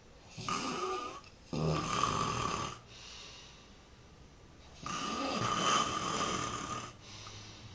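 A man snoring loudly in his sleep: two snores close together at the start, then a pause, then one longer snore about five seconds in.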